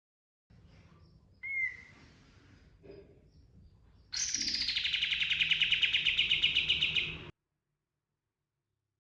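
Kapas tembak (katem) songbird giving one short upturned chirp, then a loud rapid rolling trill that starts high and settles slightly lower, lasting about three seconds before cutting off abruptly.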